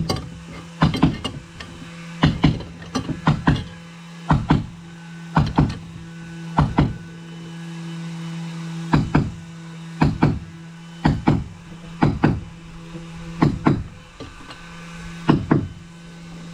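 Hammer blows, roughly one a second and sometimes two in quick succession, tightening the nut that holds the propeller on the prop shaft. A steady low hum runs underneath and winds down in pitch near the end.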